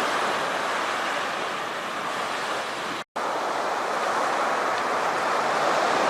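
Ocean surf washing on a beach, a steady rush of noise; it cuts out for a split second about three seconds in.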